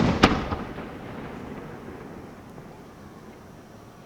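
Fireworks aerial shells bursting: a sharp crack about a quarter second in and a smaller one just after, then the booming echo dies away over a second or two.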